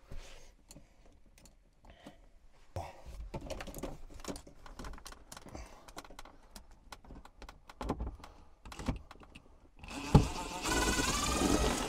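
DeWalt cordless drill backing out the mounting screws of a Shurflo RV water pump, with scattered clicks and rattles of the tool and screws. Near the end the drill runs for about two seconds, the loudest sound here, its whine wavering in pitch.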